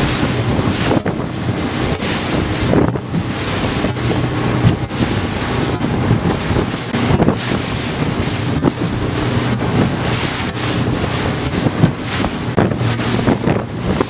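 Inflatable boat running across choppy sea: its motor runs steadily under heavy wind buffeting on the microphone, with water splashing and slapping against the hull again and again.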